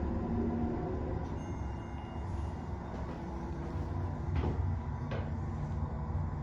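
Store elevator car in motion: a steady low rumble and hum, with two short knocks near the end.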